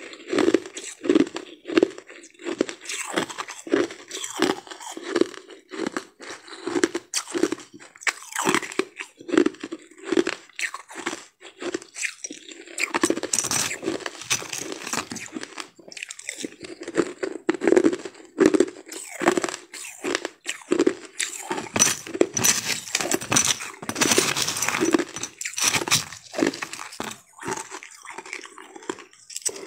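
Crushed ice being chewed, crunching in quick repeated bites with a steady chewing rhythm of about two a second, louder stretches of crunching in the middle.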